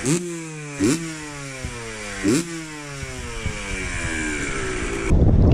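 A motorcycle engine being blipped three times: each rev jumps up sharply, then the pitch falls slowly as the revs drop back. Near the end it cuts suddenly to a loud low rumble.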